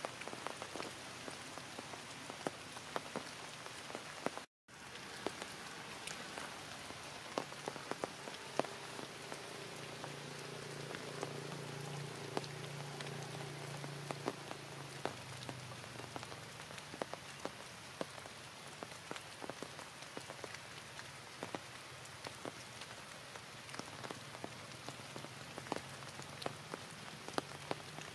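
Heavy rain falling steadily, with many sharp drips striking close by. The sound breaks off for an instant about four and a half seconds in, and a faint low hum swells and fades in the middle.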